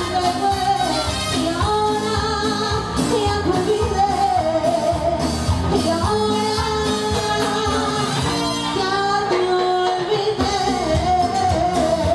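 A live band playing on drums and other instruments, with a woman singing the lead into a microphone.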